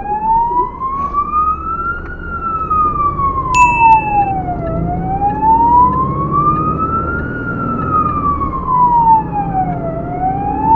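Fire engine siren in a slow wail, its pitch rising and falling smoothly about every five seconds, over the steady rumble of the truck's engine as it drives on an emergency run. A short, high, steady beep sounds about three and a half seconds in.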